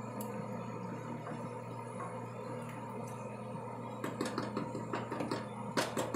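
Wooden spatula scraping and tapping in a skillet as ricotta is spread over pasta in sauce: a run of short taps and scrapes starting about four seconds in, the loudest near the end, over a steady low hum.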